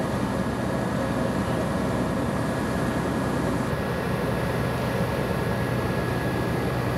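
Fire trucks' diesel engines running steadily, a constant drone with a low hum and a thin high whine.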